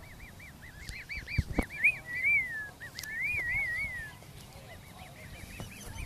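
Black swans calling: a run of short, high, rise-and-fall whistled notes, several a second, then two longer wavering whistles. Two dull thumps come about a second and a half in.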